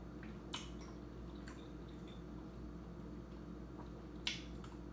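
Close-miked eating sounds: a person chewing with a few sharp, wet mouth clicks and smacks, the loudest about four seconds in.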